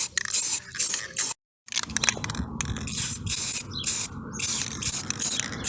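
Repeated short strokes of abrasive scrubbing on the wagon's sheet steel, taking off surface rust, with a brief total break about a second and a half in.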